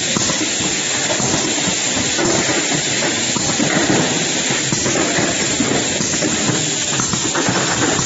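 Steady, even hissing din of a running bottle filling and packing line: conveyor and machinery running continuously.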